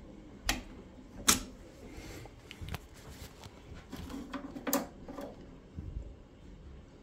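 Several sharp metallic clicks and knocks, irregularly spaced, the loudest about a second in, from hand tools working the screws of a newly fitted boiler circulating pump and being handled around its casing.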